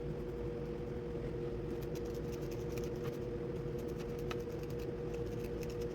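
A steady background hum with two constant tones, and a few faint scattered ticks over it.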